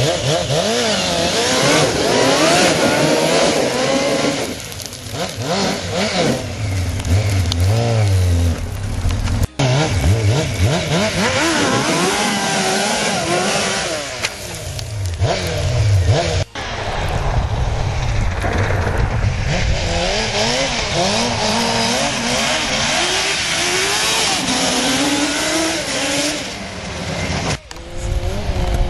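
Honda CBR600 inline-four motorcycle engine in an ATV, revving hard and accelerating, its pitch rising and falling again and again as it is ridden. The sound breaks off abruptly three times.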